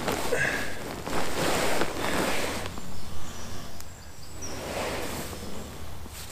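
Rustling and shuffling noise with a few sharp ticks for the first two and a half seconds or so, then a quieter outdoor background.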